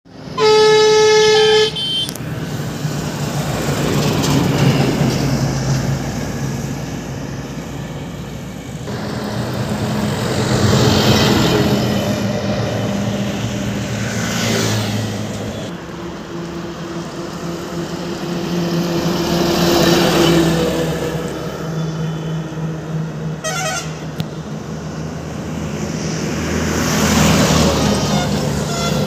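Highway traffic passing: motorcycles, auto-rickshaws and a truck go by one after another, each rising and fading, over a steady engine hum. A loud vehicle horn sounds for over a second just after the start, and a short horn toot comes later.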